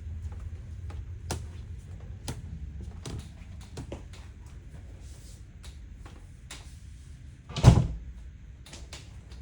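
Clicks and knocks of a travel trailer's cabinets and doors being handled, with one much louder thump about three-quarters of the way through.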